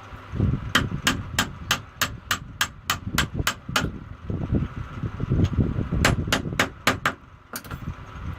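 Hammer tapping on a metal part of a box strapping machine, a steady run of about ten sharp strikes at roughly three a second, then a pause and five more, with a last single strike near the end. Low knocking and handling noise run underneath.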